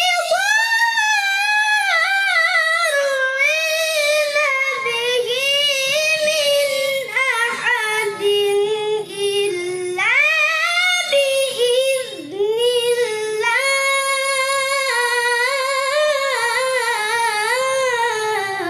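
A child's high voice reciting the Qur'an in melodic tilawah style, holding long, ornamented phrases with wavering pitch. A new phrase starts about ten seconds in, and the voice ends just at the close.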